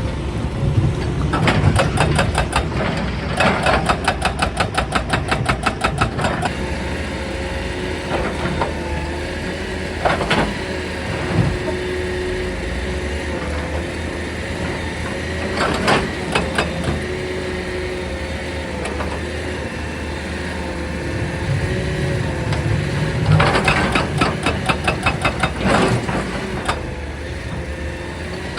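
Excavator engine running steadily, with a hydraulic rock breaker hammering stone in rapid bursts of about nine blows a second, once in the first few seconds and again near the end. Single sharp knocks of rock fall in between.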